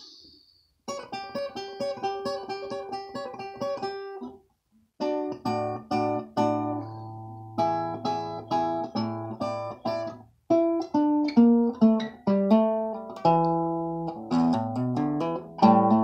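Resonator guitar fingerpicked in a blues: single plucked notes and chords start about a second in, pause briefly around four seconds, then go on with deeper bass notes under the melody.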